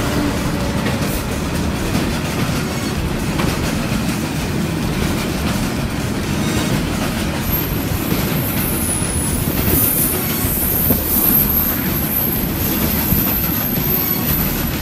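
A freight train of Imerys hopper wagons hauled by a Class 66 diesel rolls past close by, with the steady rumble and clatter of wagon wheels on the rails. A high-pitched wheel squeal joins about halfway through.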